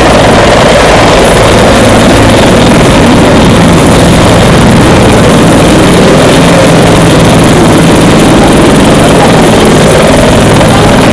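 Helicopter running close by: a loud, steady wash of rotor and engine noise over a low steady hum.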